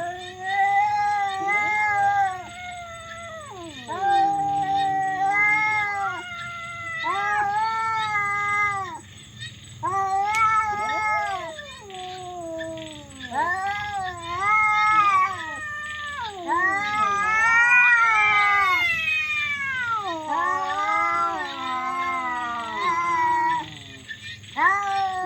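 Domestic cats caterwauling in a fight: a long run of drawn-out, wavering yowls, one after another. About two-thirds of the way through, one call climbs to a higher wail.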